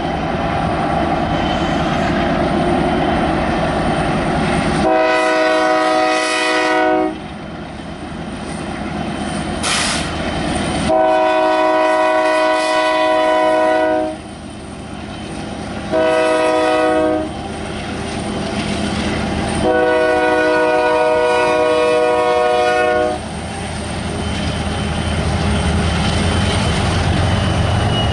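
Diesel locomotive horn on the lead unit, ex-Union Pacific EMD SD90MAC 7323, sounding the grade-crossing signal as a chord: two long blasts, a short one, then a final long one. Under it the approaching locomotives rumble, growing louder near the end as they reach the crossing.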